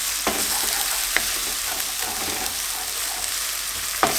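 Chopped onions and green chilies sizzling steadily as they fry in oil and butter with ginger garlic, with a few sharp taps of the stirring utensil against the pan.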